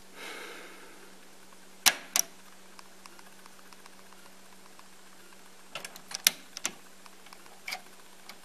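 Mechanical clicks and clunks of the Akai CS-M40R cassette deck's piano-key transport buttons and counter reset button being pressed and released: two clicks about two seconds in, a quick cluster of several around six seconds, and a couple more near the end. A steady low hum runs underneath.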